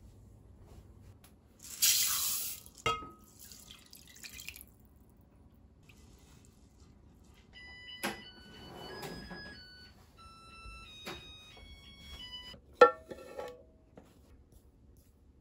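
Kitchen handling sounds: a loud, short burst of noise about two seconds in, then scattered clicks and a sharp knock near the end as items are set down on a metal counter. Light background music of short plinking notes plays in the second half.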